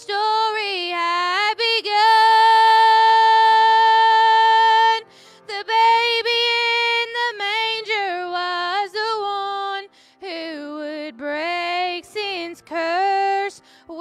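A woman singing a solo with vibrato, holding one long note about two seconds in, then going on in shorter sung phrases.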